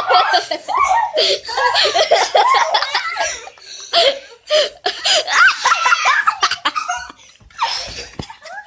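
Several children laughing loudly and shrieking together, with a few short knocks mixed in and a brief lull near the end.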